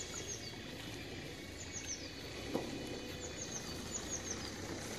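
Small birds chirping: short high falling chirps in quick groups of two or three, over a steady low outdoor background hum, with one faint tap about halfway through.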